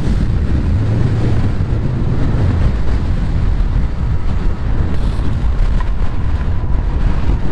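Heavy wind rumble on a helmet chin-bar microphone from riding a Sur Ron X electric dirt bike into a headwind, with a faint steady whine from about halfway.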